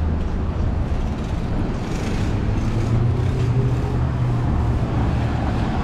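City street traffic: a motor vehicle's engine drones low and steady close by, loudest in the middle, over the general hum of passing cars.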